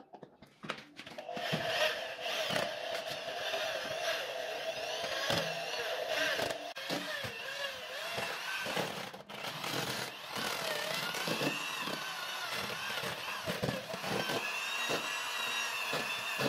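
Electric drill with a mixing rod running, stirring green colourant into damp sand in a plastic tub; it starts about half a second in. The motor whine rises and falls a little in pitch as the speed changes, over a gritty scraping of the rod through the sand.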